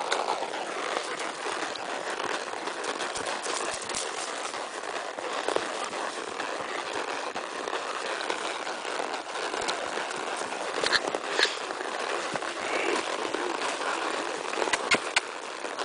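Tennessee Walking Horse walking on a leaf-littered dirt trail: steady hoofbeats with rustling and crunching of dry leaves underfoot, and a few sharper clicks about eleven seconds in and again near the end.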